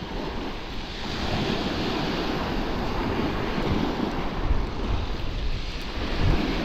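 Small waves washing onto a shingle beach, with wind buffeting the microphone as a low rumble.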